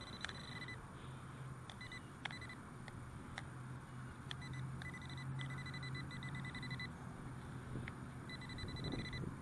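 Fisher F19 metal detector giving its target tone: one steady high beep that switches on and off in stretches of a fraction of a second up to about two and a half seconds as the coil passes over a target in the pull-tab range. A few sharp clicks fall between the tones.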